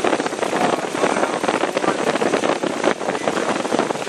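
Ford Explorer 4.0-litre V6 running steadily with the engine-bay clatter of belt and accessories, started up after a thermostat replacement.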